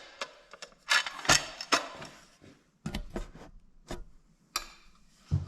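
Handling noise from a shop light's power cord and housing parts being worked by hand: a string of irregular clicks and knocks with rustling between them.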